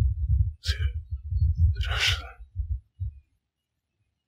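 Low, uneven, throbbing rumble from an old film clip's soundtrack, with two short hissing bursts. It turns choppy and breaks off about three seconds in.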